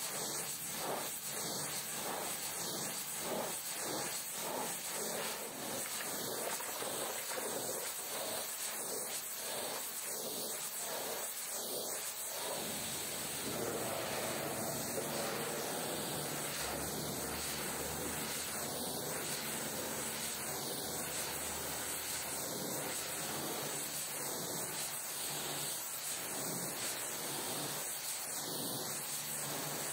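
High-pressure washer jet spraying water in a steady hiss. For about the first twelve seconds the hiss rises and falls regularly, about once or twice a second, then it goes on more evenly.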